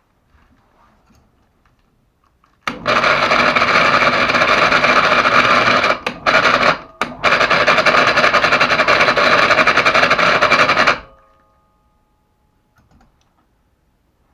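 PA 250/500 mini electric hoist motor switched on and running with a loud, rapid rattling buzz, which the owner thinks is most likely the brake shoes rubbing, or else a failing motor. It cuts out briefly twice in the middle, then runs on and stops.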